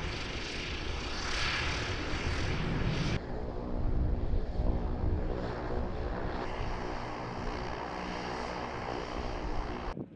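Aircraft engines running: a steady drone with a layered hum of even tones, changing abruptly about three seconds in.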